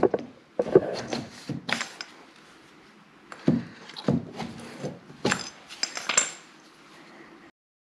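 Metal hand tool clinking and clicking against the trim while leftover brad nails are pulled out: about seven sharp, irregular strikes, cutting off suddenly near the end.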